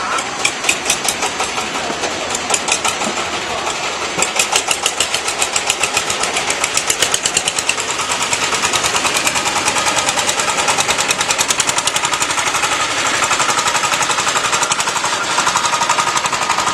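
Small forklift engine running with a fast, regular clatter of about nine beats a second as the forklift moves a pallet of concrete blocks.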